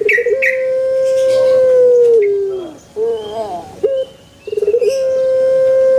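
Puter pelung dove cooing: a short stuttering lead-in, then a long held coo of about two seconds that dips at the end, given twice. Faint chirps of other birds sit behind it.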